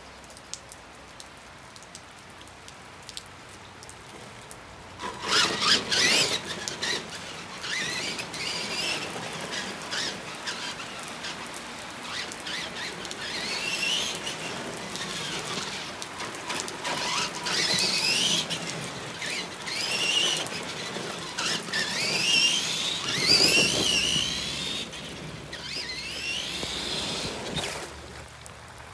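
Tamiya Clodbuster RC monster truck's twin electric motors and gearboxes whining, the pitch sweeping up and down again and again as the throttle is worked, over a steady hiss of rain. The whine starts about five seconds in, after a stretch of rain alone, and stops near the end.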